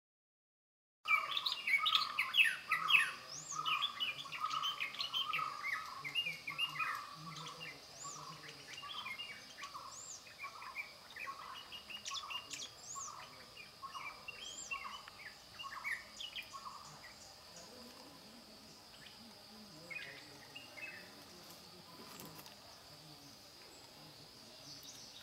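Birds chirping, many short calls overlapping, over a steady high thin tone. The chirping starts suddenly about a second in and grows fainter toward the end.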